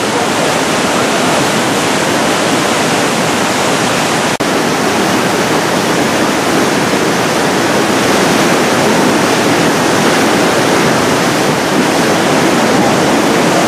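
Loud, steady rushing roar of a muddy flood torrent, a river swollen by a mudslide. The roar drops out for a moment about four seconds in.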